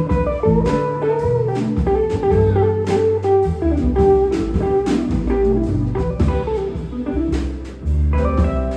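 Instrumental jazz-blues music: an electric guitar plays a melody over a bass line and drums.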